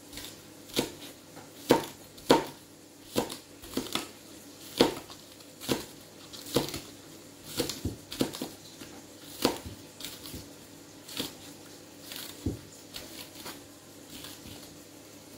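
Kitchen knife chopping vegetables on a cutting board, uneven single strokes about once a second.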